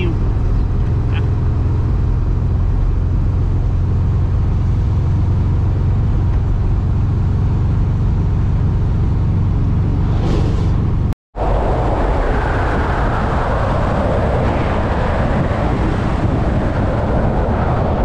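Volkswagen Kombi van driving on a highway: steady engine and road rumble, with an oncoming truck passing about ten seconds in. After a brief dropout just after that, the sound becomes a louder rush of wind over the microphone.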